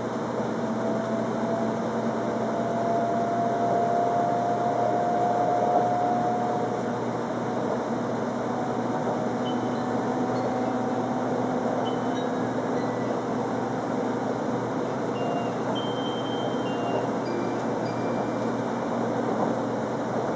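Cabin noise of a 300 series Shinkansen train running at speed: a steady rush of running noise, with a faint whine from the traction motors that rises slowly in pitch over the first several seconds as the train gathers speed.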